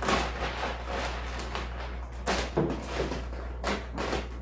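Clear plastic film wrap crinkling and rustling as it is pulled and cut off a flat-screen TV, with several louder crackles.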